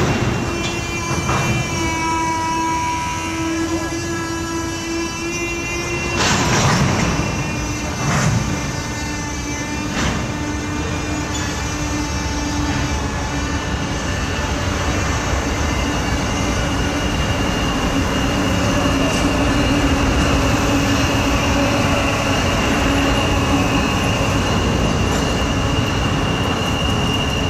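Chesapeake & Ohio 1309, a 2-6-6-2 Mallet steam locomotive, working hard at a distance: a steady rumble and hiss, with loud exhaust blasts about every two seconds in the first ten seconds. A steady high tone sounds through the second half.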